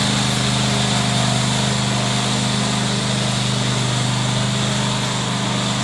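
Riding lawn mower engine running steadily as the mower is driven across the grass.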